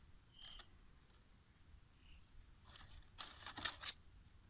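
Palm leaves rustling and crinkling as hands work them, in a short cluster of rustles about three seconds in, over a quiet background.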